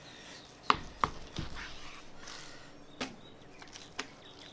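Knife cutting a raw brisket into pieces on a plastic cutting board, the blade knocking sharply on the board about five times.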